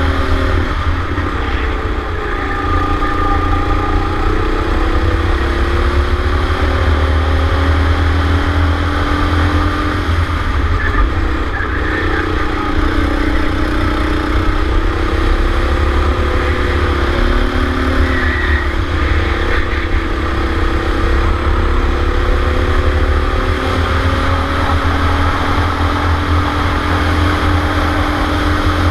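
Go-kart engine running, recorded from onboard the kart, its pitch rising and falling repeatedly as the kart accelerates and slows through the bends, over a heavy low rumble.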